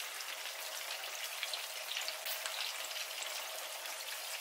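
Sliced potatoes and onion wedges frying in oil in a pan, still pale: a steady sizzle full of small crackles and spits.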